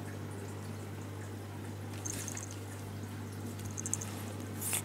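Faint rustling of a cat's fur rubbing against a hand and the microphone, a soft brush about two seconds in and a louder one near the end, over a steady low hum.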